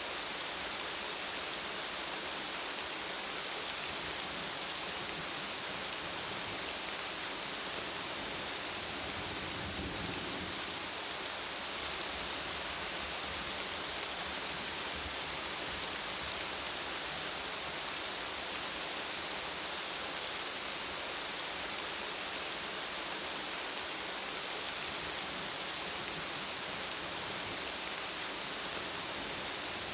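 Steady rain falling, an even hiss of drops, with a low rumble swelling about ten seconds in.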